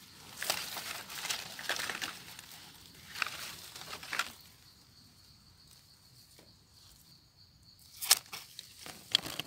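Rustling and crackling of leaves and undergrowth as a gloved hand picks wild mushrooms, in several bursts over the first four seconds and two short sharp ones near the end. In the quieter stretch between them a faint steady high tone is heard.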